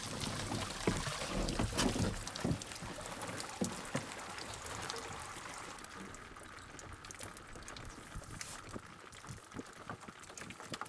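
Water pouring and trickling off a mesh fish trap as it is hauled out of the sea onto a boat, with scattered knocks and rustles. The running water is heaviest in the first few seconds and thins to a trickle.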